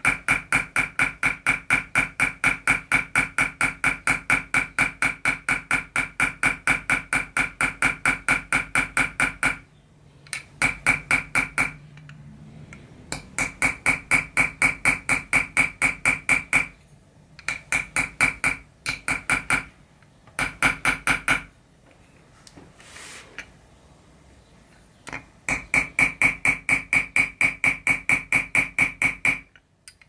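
Chasing hammer tapping a steel chasing tool into 0.6 mm copper sheet set in chasing pitch: rapid, even taps about five a second, each with a bright metallic ring. The tapping comes in runs with short pauses as the tool is moved, and a longer pause of a few seconds past the middle.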